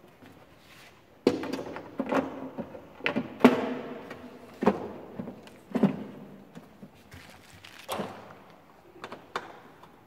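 Plastic protection cover of a Riello RL 130 diesel burner knocking and thudding against the burner housing as it is fitted back on: a series of thunks, bunched in the first half and loudest about three and a half seconds in, with a few more near the end.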